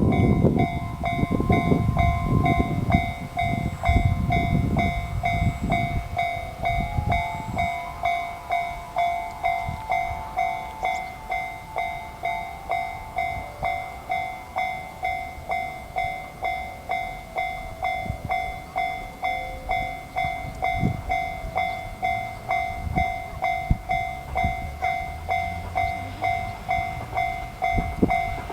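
Japanese level-crossing alarm ringing in an even, repeating ding at about one and a half strokes a second, with a train passing over the crossing during the first six seconds or so.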